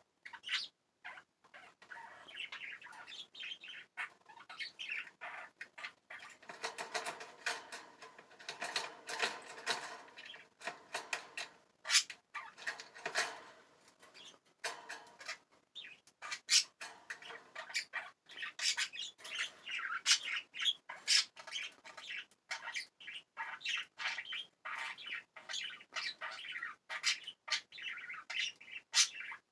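Pet budgies chirping and warbling, with many sharp clicks and taps scattered throughout; the chatter is densest from about six to thirteen seconds in.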